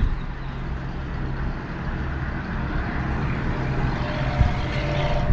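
Strong gusty wind blowing through trees and buffeting the microphone, with a steady low rumble underneath.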